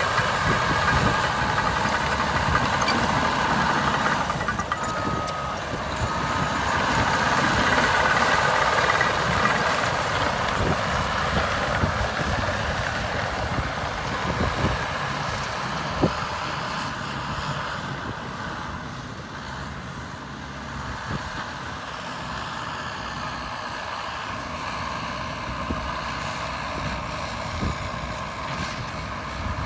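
Caterpillar D6R2 crawler bulldozer at work, its diesel engine running steadily under load. The sound is louder in the first half and eases off gradually after about sixteen seconds, with a single sharp knock around the middle.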